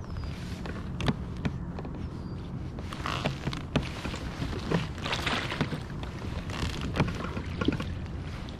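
Steady low hum of a small boat's motor, with scattered sharp knocks and clicks and a couple of short rustling bursts.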